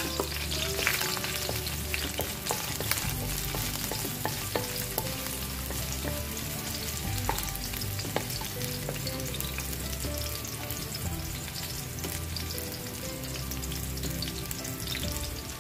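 Sliced garlic sizzling steadily in hot oil in a metal wok as it is sautéed, with a wooden spatula stirring it and now and then ticking against the pan.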